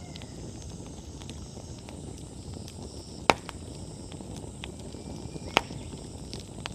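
Wood bonfire burning with a steady low rush and scattered small crackles. Two loud sharp pops stand out, one about midway and one a couple of seconds later.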